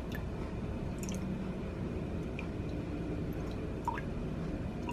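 A few faint drips of almond milk falling into a glass measuring cup, with a more distinct drop about four seconds in, over a steady low hum.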